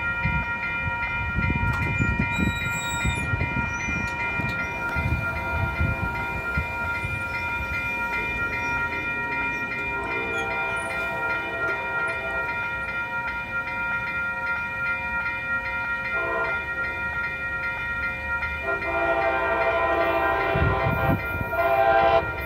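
MBTA MPI HSP46 locomotive's bell ringing steadily while its air horn sounds a chord three times: a blast about ten seconds in, a short toot around sixteen seconds, and a long blast near the end. A low rumble runs underneath.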